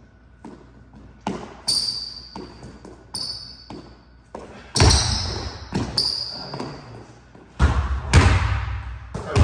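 Basketball dribbled on a hardwood court, a series of sharp bounces that grow louder and heavier in the second half, with short high sneaker squeaks on the wood as the players cut.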